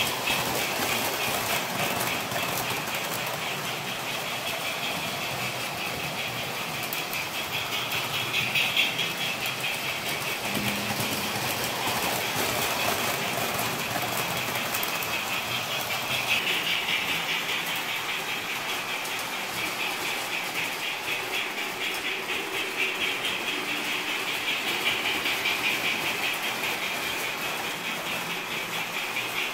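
O-scale electric model train running on its track: a steady whir with fast, even clicking, swelling louder a few times as the train passes close.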